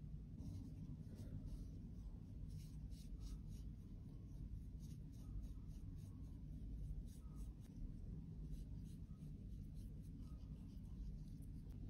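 A small bristle brush sweeping crumbled pressed powder out of a compact's metal pan and off its mirror: a quick, faint series of short brushing strokes, several a second.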